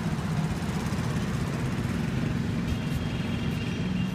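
Busy road traffic: a steady hum of engines and tyres, with a faint high-pitched steady tone coming in close to three seconds in.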